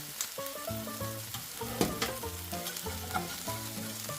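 Ground-chicken burger patties frying in avocado oil in a pan, a steady sizzle. A sharp knock of a utensil against the pan comes about two seconds in, and a tune with a bass line plays underneath.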